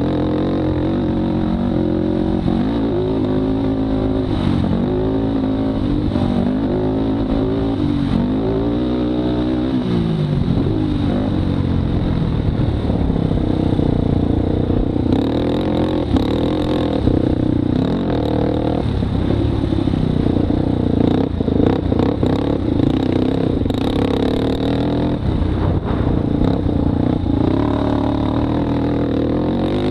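Polaris Predator 500 sport quad's single-cylinder four-stroke engine being ridden hard on a dirt track. The revs swing up and down several times in the first ten seconds, then hold steadier, with some rattling from the machine over the bumps.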